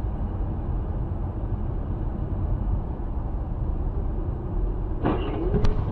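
Steady low road and engine rumble heard from inside a moving car. About five seconds in there is a brief sound with a wavering pitch, then a sharp click.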